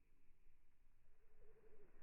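Near silence, with one faint low warbling bird call about one and a half seconds in.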